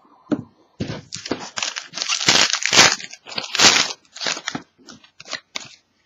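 A foil trading-card pack wrapper being torn open and crinkled: a run of loud, irregular crackling rustles that thin out near the end.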